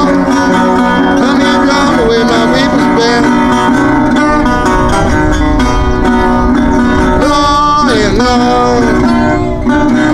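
Acoustic guitar playing a blues, with notes that bend and slide in pitch.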